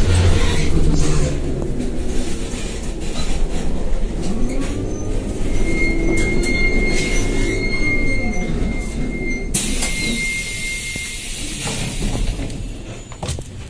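Cabin noise of a Škoda 15Tr articulated trolleybus slowing for a stop: the electric drive's whine rises and falls in pitch over a steady rumble, with a high steady tone above it. About ten seconds in comes a sudden hiss of compressed air.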